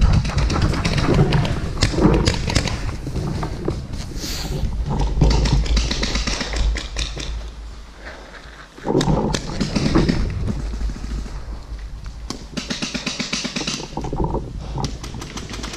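A paintball player's running footsteps and gear knocks picked up by a head-mounted camera, with a heavy low rumble of movement and wind on the microphone. After a short lull, a run of quick taps follows near the end.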